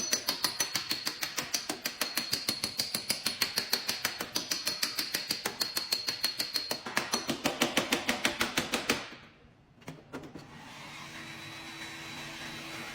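Rapid, even tapping on a car body panel, about six light blows a second, typical of a paintless dent repair tap-down with a hammer and knockdown tool to level a high spot. The tapping stops abruptly about nine seconds in, and a low steady hum follows.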